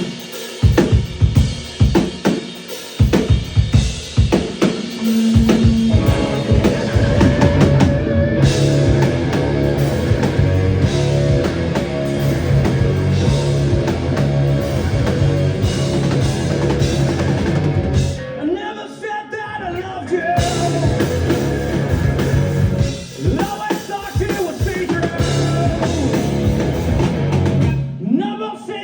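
Rock band playing live. Drums hit alone for about the first six seconds, then the full band comes in loud and dense, with a brief drop about two-thirds of the way through before it resumes.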